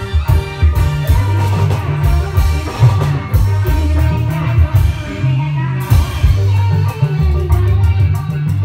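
Loud music with a heavy, pulsing bass beat and guitar.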